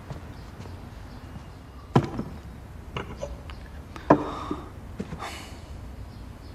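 A few sharp knocks and clinks of a soup bowl being set down and handled on a wooden desk, about a second apart. The loudest comes about four seconds in and rings briefly.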